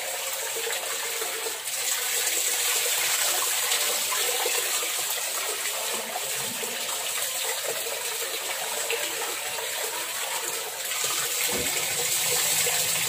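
Tap water running steadily into a metal pot while rice is washed in it by hand, with one knock near the end as the pot is tipped.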